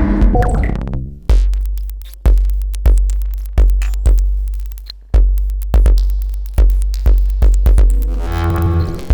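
Eurorack modular synthesizer patch playing a rhythmic pattern of struck, ringing tones over deep bass hits, each decaying away after its attack. These are short pulses ringing a resonant filter and a short delay: pinged filter and Karplus-Strong plucks.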